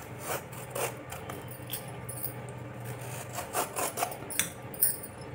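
Hand vegetable peeler scraping the skin off a bottle gourd in several short strokes at irregular intervals.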